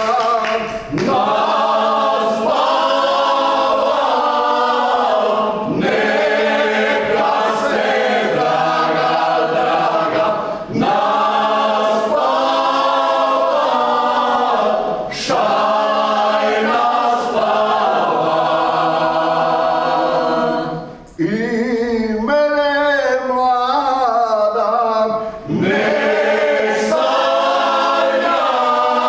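Small folk vocal group singing a traditional Croatian folk song a cappella, in phrases of about five seconds with short breaks between them. The line turns wavering and ornamented about two-thirds through before the full sound returns.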